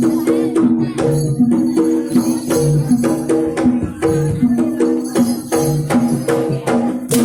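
Jaranan dance accompaniment: a Javanese gamelan-style ensemble of pitched gongs playing a short repeating interlocking figure over regular drum strokes and jingling percussion.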